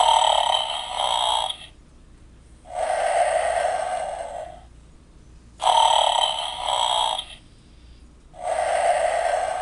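Animated skeleton prop playing a snoring sound effect on a loop. There are two snores, each a rasping in-breath that starts suddenly, then after about a second a longer, smoother out-breath.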